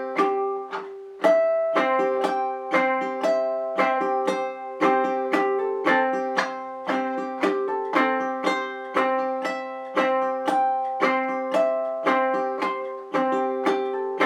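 Ukulele played in a clawhammer-hybrid pattern, pick, strum, thumb on the top string, at a slow, steady pace: a short melody of plucked notes and hammer-ons over a bouncing rhythm of strums.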